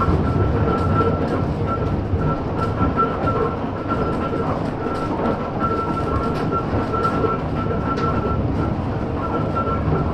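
A 1915 Ringhoffer tram from Prague running along the track, heard from the driver's platform: a steady rumble and rattle of the wheels and car body, with light clicks and a high steady tone that drops out now and then.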